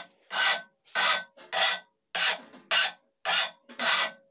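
Flat hand file rasping across the steel edge of a lawnmower blade in repeated strokes, about two a second. The file is taking off the jagged burr left after sharpening.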